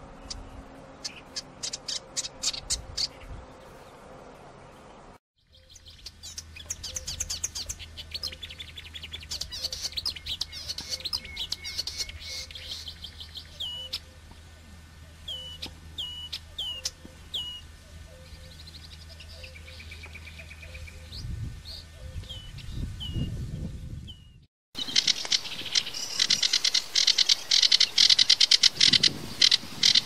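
Sedge warbler song: fast, varied chattering phrases of trills, buzzy notes and sharp whistled notes. The song comes in three separate runs split by two short silences, and the last run, starting near the end, is the loudest.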